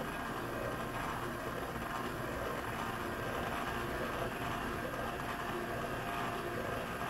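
Small electric motor and gear drive of a Southern VP teardrop rotating dash light, whirring steadily as the reflector turns.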